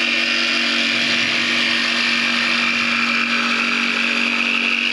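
Cordless jigsaw running steadily as it cuts through a wooden board, a continuous motor whine with the buzz of the blade.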